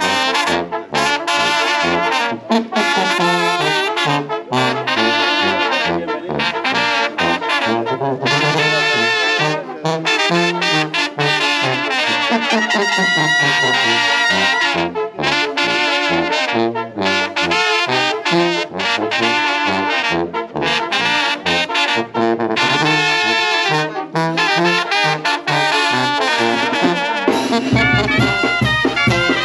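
Brass band music, with trumpets and trombones playing a melody. Deeper instruments and percussion come in near the end.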